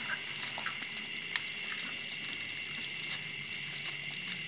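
Live rice-field crabs crawling over one another in a plastic bucket: scattered small clicks and scratches of shells and legs, with a sharper click about a second and a half in, over a steady high hiss.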